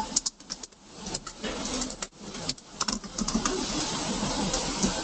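Background noise from participants' unmuted microphones on an open webinar audio line: a steady hiss with frequent sharp clicks and knocks.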